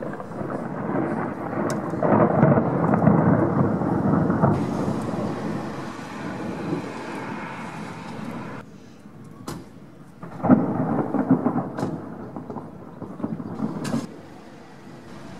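Thunder rumbling in two long rolls: the first swells over the opening seconds and fades out about eight seconds in; the second breaks in suddenly about ten and a half seconds in and rolls on for several seconds.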